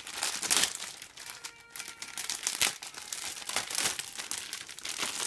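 Clear plastic bag holding plastic model-kit runners being handled and crinkled, an irregular run of crackles and rustles.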